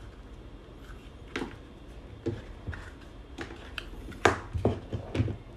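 Irregular small clicks and knocks of hands handling a plastic DIN-rail energy meter and the wires going into its terminals, about eight in all. The loudest knock comes about three-quarters of the way through, followed by a quick few more.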